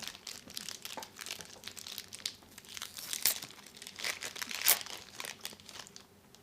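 Foil wrapper of a Pokémon card booster pack being torn open and crinkled by hand: a run of crackles, with two sharper ones a little after three seconds and near five seconds in.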